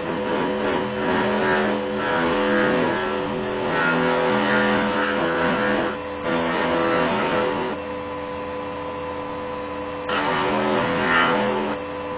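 Background music with a run of changing pitched notes, laid over the footage.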